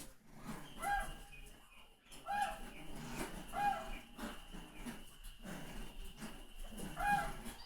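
Four short, pitched animal calls, each a brief clipped note, spaced irregularly over several seconds, over a faint steady high tone.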